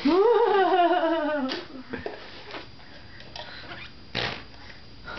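Baby blowing a voiced raspberry, a buzzing hum of about a second and a half that rises then slowly falls in pitch. A shorter, breathier burst follows about four seconds in.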